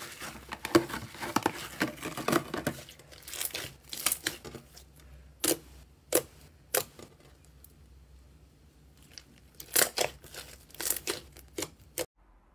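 Slime squished and poked by fingers. A dense run of crackling comes first, for about three seconds. Then come separate sharp pops and clicks with quiet gaps between them, a cluster near the end, and it cuts off abruptly.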